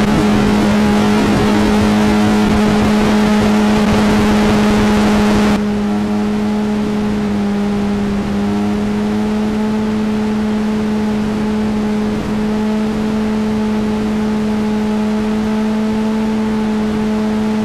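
Sport motorcycle engine running at steady high revs at highway speed, one unwavering note, under loud wind rush that drops away abruptly about five and a half seconds in.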